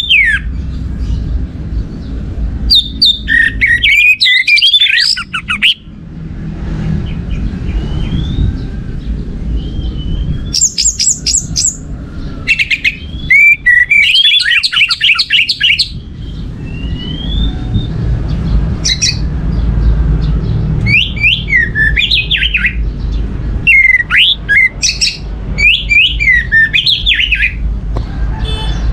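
Orange-headed thrush singing in bursts of quick, varied whistled phrases separated by short pauses, over a steady low rumble.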